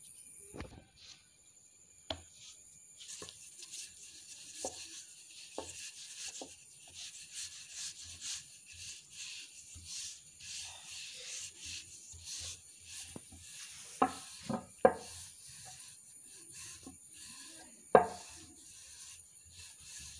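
Wooden rolling pin rolling out a stuffed holige dough round on a floured surface: a steady rubbing, swishing stroke sound, broken by a few sharp wooden knocks, the loudest in the second half.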